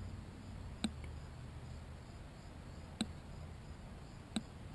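Quiet stretch with a faint low hum and three faint, short clicks a second or two apart: handling noise from a compound crossbow held on aim before the shot.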